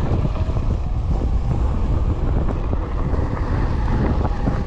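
Strong wind buffeting the microphone while riding a high-power e-bike, a steady low rumble.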